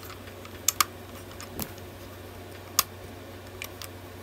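Hard plastic parts of a Transformers Party Wallop toy clicking as they are worked free by hand: a quick double click a little under a second in, another near the middle, the sharpest near three seconds, then a couple of faint ones.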